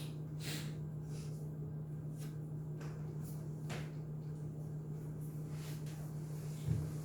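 Steady low hum of room equipment, with a few faint soft scratches or taps in the first four seconds.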